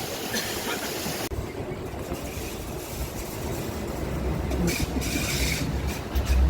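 Even hiss that cuts off abruptly about a second in, followed by the steady low rumble of a moving vehicle.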